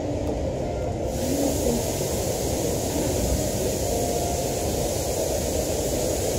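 Steady low background noise of a restaurant dining room, with a higher hiss that comes in about a second in.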